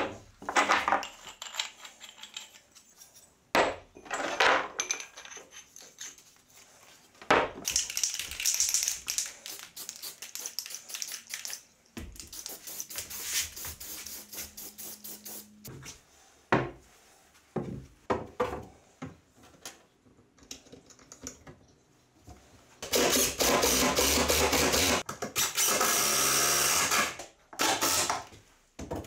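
Irregular clinks and knocks of black iron pipes and flanges being handled and screwed together, then a cordless drill/driver running hard for several seconds near the end, with a shorter burst after it, driving screws through pipe flanges into a wall.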